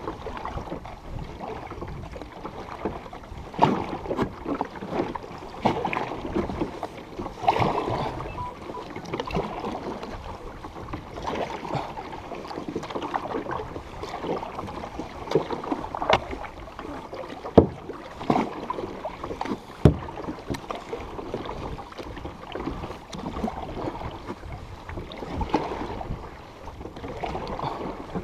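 Kayak paddling: a double-bladed paddle dipping and pulling through calm water, with splashing and dripping and now and then a sharp knock.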